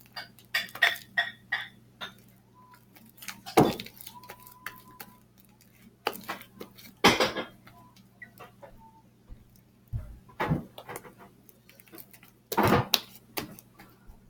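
Thick homemade glue slime being squeezed and stretched by hand, making irregular clicks and pops, several of them louder than the rest.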